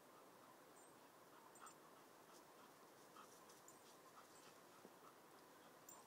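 Faint sounds of a German Shepherd and a Springer Spaniel puppy at play: soft panting and a few brief whimpers, with light clicks, over a quiet hiss.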